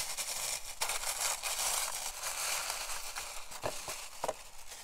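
Packing material crinkling and rustling as items are unwrapped by hand, with a few sharp clicks and taps.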